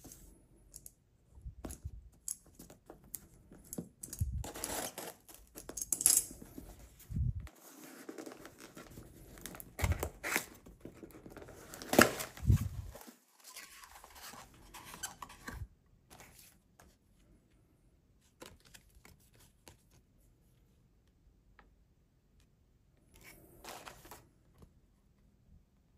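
Box cutter slicing the packing tape on a cardboard parcel and the tape tearing, then the cardboard flaps being pulled open, with sharp scrapes and knocks loudest about six and twelve seconds in. After that, only faint paper rustling as the cards inside are handled.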